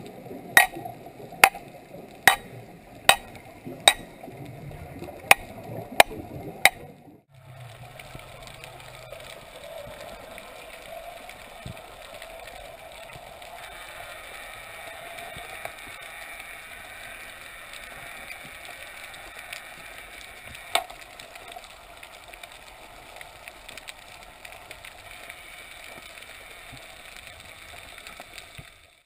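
Sharp metallic strikes heard underwater, about one every 0.8 seconds, as a diver hammers a metal stake into the sandy seabed, eight blows in all. They stop abruptly about seven seconds in, giving way to a steady underwater hiss with one faint click later on.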